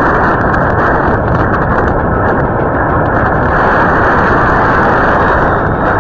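Tornado winds blowing hard across a doorbell camera's microphone: a loud, steady rush of noise with no let-up.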